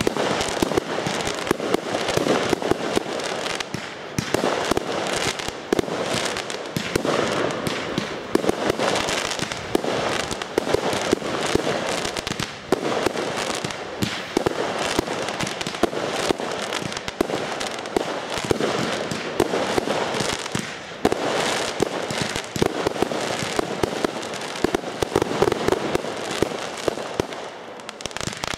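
Fireworks going off in a dense, continuous stream of shots and small aerial bursts, bang after bang with no pause.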